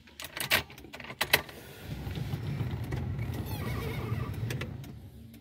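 Clicks of a key in a car's ignition, then a motor runs steadily for about three seconds and fades out near the end.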